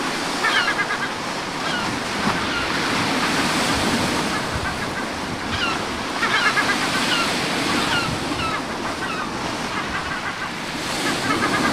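Sea surf washing steadily on the Kara Sea shore, with wind. Short high chirps come over it several times.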